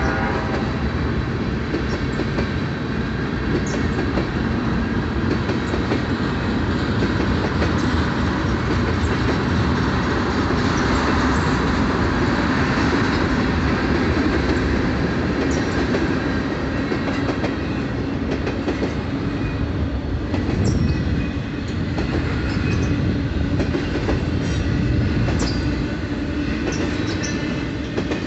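Freight train cars rolling past close by, tank cars and then double-stack container cars: a steady rumble of steel wheels on rail with clickety-clack over rail joints. Short high wheel squeaks come now and then.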